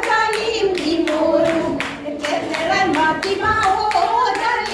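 Women's voices singing a Jeng Bihu song to quick, steady hand clapping that keeps the beat.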